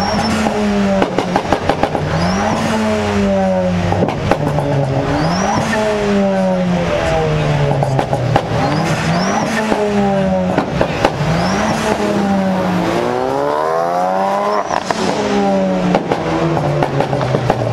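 Ford Focus RS's turbocharged four-cylinder engine being revved repeatedly as the car rolls slowly: about six rises in revs a few seconds apart, each climbing quickly and falling back, the biggest near the end, with sharp crackles in places.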